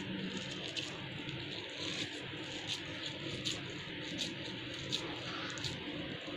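Hands squeezing and pressing a moist corn-and-potato kebab mixture around a wooden ice-cream stick: faint soft squishing with light ticks every second or so, over a steady hiss.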